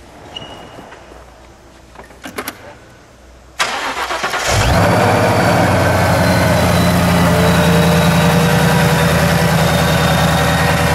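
Supercharged V8 of a 2016 Shelby Terlingua Mustang, fitted with a 2.9-litre Whipple twin-screw supercharger, being started. After a few quiet seconds the starter cranks briefly. About four and a half seconds in the engine catches and settles into a loud, steady idle.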